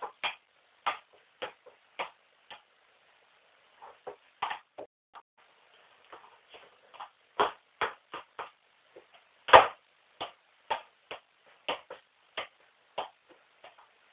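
A football struck over and over: sharp, short thumps at an uneven pace of about one or two a second, the loudest about nine and a half seconds in.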